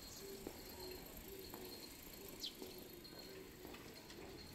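Faint bird calls: short low cooing notes repeating about twice a second, and one quick falling high chirp midway, over a faint background hum.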